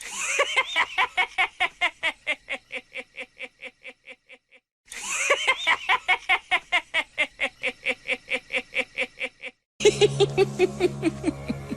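Chucky the killer doll's evil laugh: a man's maniacal cackle in rapid pulses that fade away, heard twice. A third cackle starts near the end over a low steady hum.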